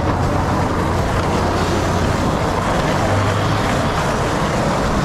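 City street traffic: a steady wash of road noise with a low engine drone underneath, which grows briefly about three seconds in.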